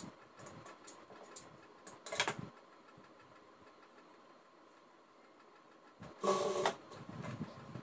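Scissors snipping fabric in light clicks, with a louder clack about two seconds in. About six seconds in, a Jack industrial sewing machine runs in one short burst of stitching.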